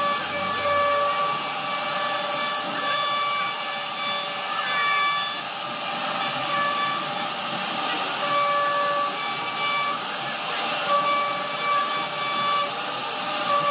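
CNC router spindle whining at a steady high pitch as its bit carves a relief pattern into a wooden board, over a hiss of cutting. The whine's tones fade and return every second or so.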